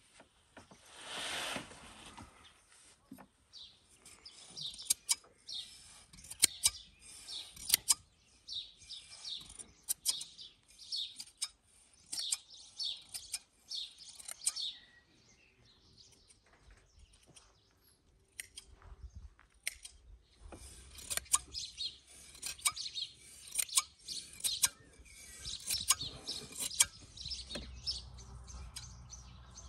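Hand sheep shears snipping through a sheep's fleece in repeated sharp clicks, with small birds chirping throughout.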